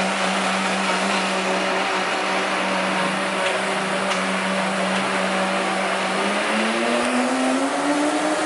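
A café's electric blender running continuously with a steady hum, its motor pitch rising from about six seconds in.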